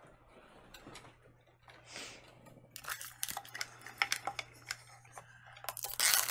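Hands crinkling and peeling the printed wrapper off a Mini Brands miniature. It starts as a soft rustle, then turns into a run of crackles about halfway through that is densest near the end.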